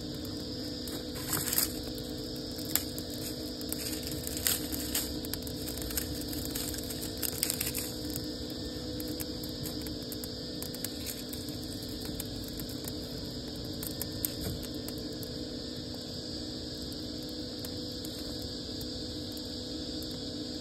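Dry leaves crumpling and crackling as they are pushed into a small leaf-and-twig fire, with sharp pops over the first eight seconds, then lighter crackling as it burns. A steady hum runs underneath.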